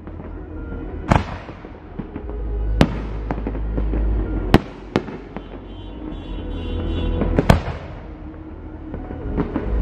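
Aerial fireworks shells bursting overhead: about five sharp, loud bangs spread irregularly through these seconds over a continuous low rumble, with the loudest bang about three-quarters of the way in.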